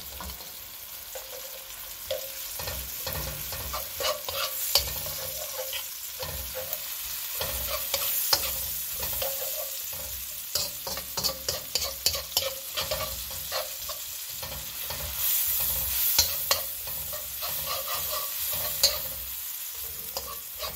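Sliced red onions and chopped garlic sizzling in hot oil in a wok, stirred with a metal spatula that scrapes and clicks against the pan again and again.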